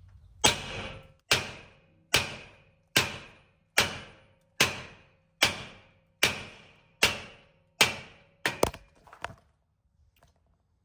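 Steady hammer blows on the end of a Ford 9.75-inch rear axle's pinion shaft, with a nut threaded on to protect the threads, driving the pinion out of the housing. About ten hard strikes come evenly, a little under a second apart, each with a short metallic ring, followed near the end by a few quicker, lighter taps.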